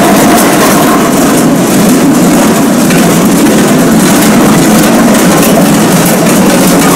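Many large waist bells of Glöckler runners clanging together as a group trots past: a loud, continuous jangle of metal bells.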